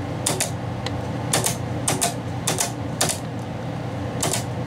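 Track-change solenoid and cam mechanism of a GE 8-track player clicking about six times, some clicks in quick pairs, as the head carriage is stepped from track to track, over a steady low hum. The mechanism, once gummed up with old grease, now shifts the head.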